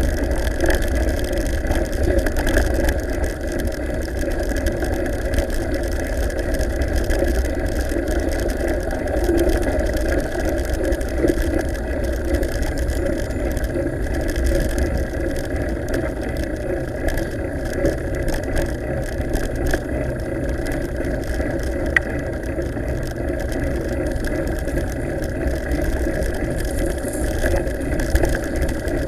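Steady rumbling noise of a mountain bike being ridden over a gravel track, heard from a camera carried on the bike: wind on the microphone and tyres rolling on loose gravel, with one sharp click about two-thirds of the way through.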